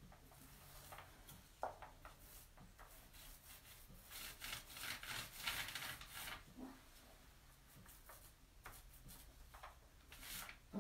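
Faint rubbing strokes of a paint roller working gritty SpreadStone stone coating onto the edge of a laminate countertop, coming in a few short clusters, with a light tap about a second and a half in.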